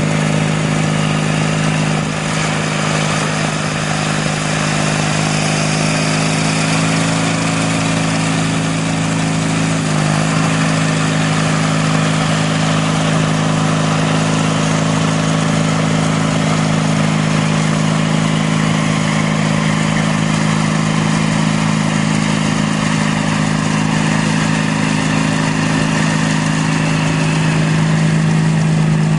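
18 hp Briggs & Stratton horizontal twin of a Sears Roper GT18 garden tractor running steadily, driving its 42-inch shaft-driven snowblower as it blows snow.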